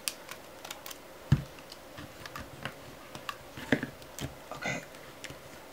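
Irregular sharp clicks and light rattles of a thin metal LCD frame coming off its snap clips as it is worked loose and lifted off the panel. A single dull knock about a second in is the loudest sound.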